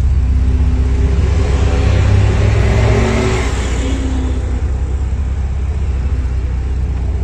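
A vehicle driving on the road: a steady low engine and road rumble, with the engine note swelling and rising about two to three seconds in, then easing off.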